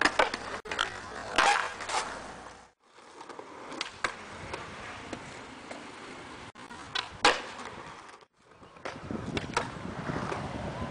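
Skateboard wheels rolling on concrete, broken by several sharp clacks of the board popping, hitting and grinding concrete ledges and landing; the loudest come about a second and a half in and about seven seconds in.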